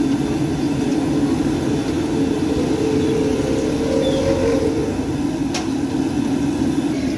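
Kachoris deep-frying in a large karahi of hot oil, a steady low roar from the frying station. There is one sharp tap about five and a half seconds in.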